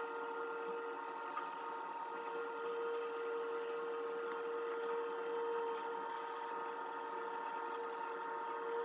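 Power Curber slipform curb machine running steadily as it extrudes a concrete curb, a constant whining drone that holds one pitch throughout.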